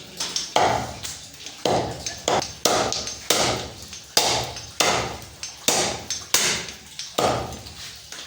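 Butcher's cleaver chopping through goat legs on a chopping block: about ten heavy strikes at a steady pace, a little over one a second, each with a short ring.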